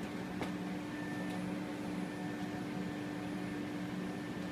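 Steady electrical hum with fan-like hiss from running equipment, with one faint click about half a second in.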